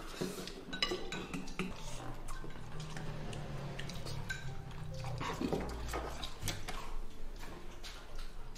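Chopsticks and spoons clinking and scraping against porcelain and stainless-steel rice bowls as people eat, a scattered run of light clinks.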